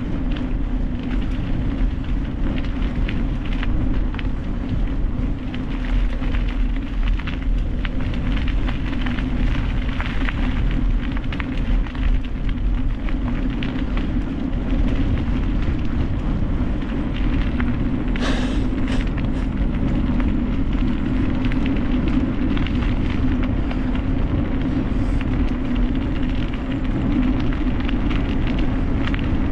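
Steady rumbling and rushing noise of a mountain bike being ridden, with tyre hum and wind on the microphone, and many small rattles and clicks from the bike. A brief louder hiss comes about 18 seconds in.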